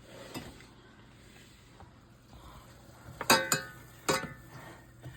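Metal utensils clinking against dishes: two sharp, ringing clinks a little past three seconds in, then another about a second later, over faint kitchen clatter.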